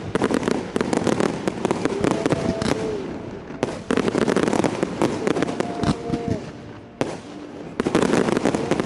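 Fireworks display: a dense barrage of shell bursts and rapid crackling. The barrage eases off briefly about three and a half seconds in and again about seven seconds in, then picks up again each time.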